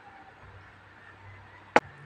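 Thick glass beer mug set down on a wooden table: one sharp knock near the end.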